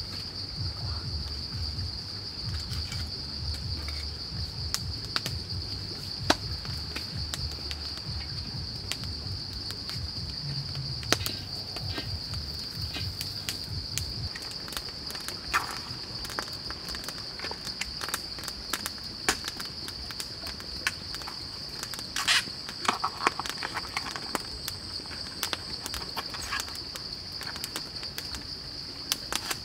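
A steady, high-pitched drone of insects in chorus, unbroken throughout. Scattered clicks and knocks sound over it, and a low rumble runs through the first half and stops about halfway.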